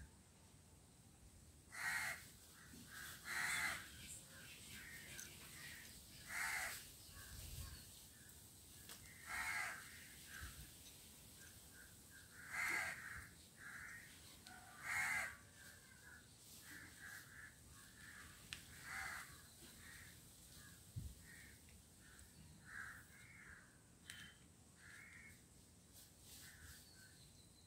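Crows cawing over and over, a loud call every few seconds with fainter calls in between.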